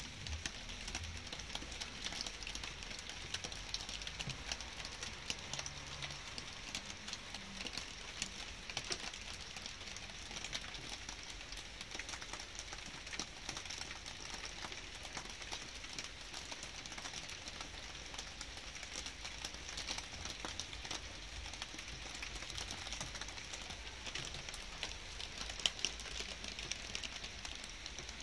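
Light rain falling steadily, with many small drops ticking irregularly close by, and a couple of louder drops near the end.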